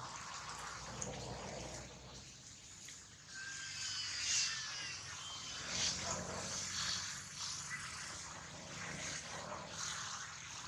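Outdoor ambience with a steady hiss and light rustling, and a few thin, high-pitched calls that slide downward about four seconds in.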